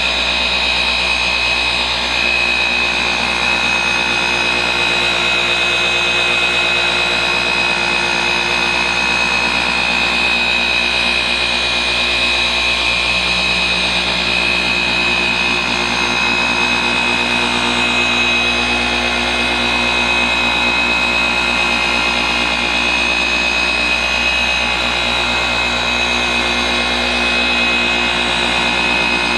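Flex XFE 7-15 150 orbital polisher running steadily with its foam pad pressed onto a car's painted panel, a constant motor drone with a high whine on top.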